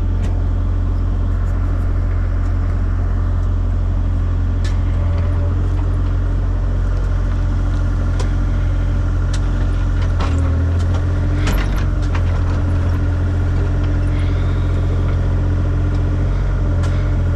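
Excavator engine running steadily at a constant speed, with a few sharp knocks and a short clatter of clanks around the middle.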